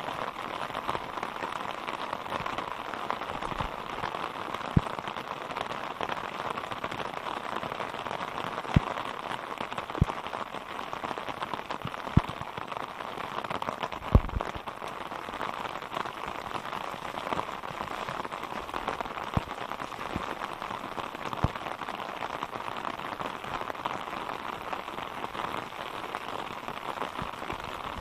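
Steady rain falling, with a few sharp, brief thumps at irregular moments.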